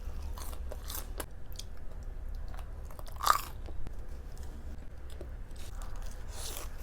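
Close-miked chewing and biting of food, with scattered crisp crunches, the loudest about three seconds in.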